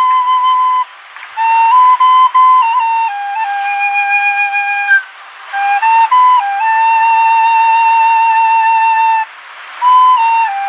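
Background music: a solo melody in a single voice, long held notes with a slight waver, breaking off briefly three times.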